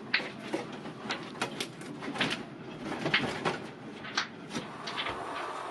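Irregular knocks, clicks and scrapes of a marine generator being wrestled and shifted by hand inside its cramped locker enclosure.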